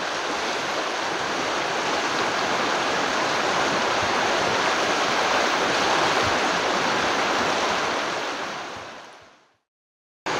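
Steady rush of flowing river water, the Rapidan River running over its riffles, fading out near the end.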